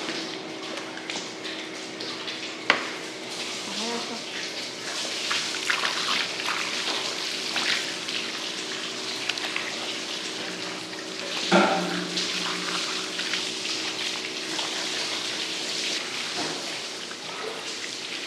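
Water from a hose spraying and splashing over cut sections of shark as they are rinsed, with a sharp knock about two and a half seconds in and a louder short knock a little past the middle.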